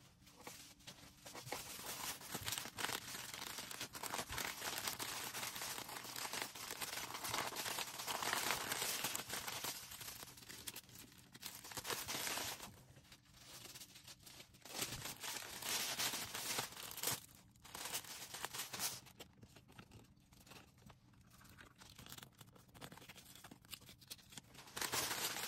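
Hands packing an order: packaging crinkling and rustling, with tearing sounds, in irregular stretches broken by short pauses.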